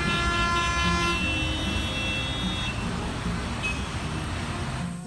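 A vehicle horn sounds one long honk over a steady rumble of engines and road traffic. The traffic noise cuts off suddenly near the end.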